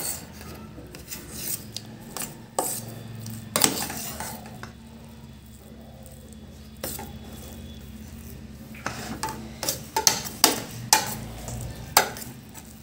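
Metal spoon stirring semolina halwa in a stainless steel bowl, clinking and scraping against the bowl in irregular sharp taps, with a quieter stretch in the middle.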